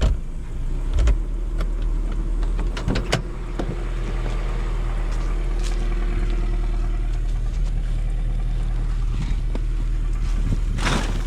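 A vehicle's engine running steadily, with several knocks and clatters in the first few seconds and a short rush of noise near the end.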